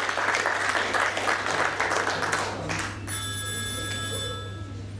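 Audience applause dying away, then a telephone rings once, a steady ring lasting a little over a second, about three seconds in.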